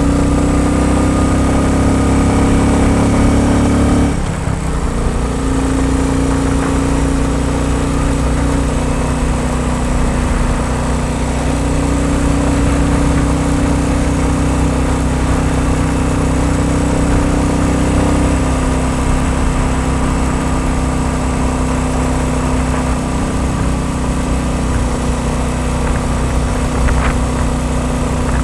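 Royal Enfield Bullet 350 single-cylinder four-stroke engine running steadily, with a brief dip and change in its note about four seconds in and another slight shift in pitch near eighteen seconds.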